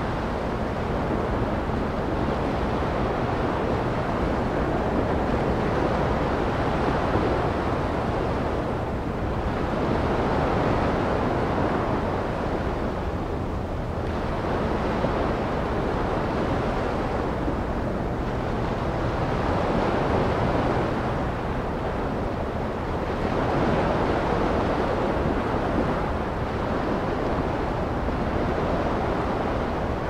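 Ocean surf washing onto a sandy beach: a continuous rush of waves that swells and eases every few seconds.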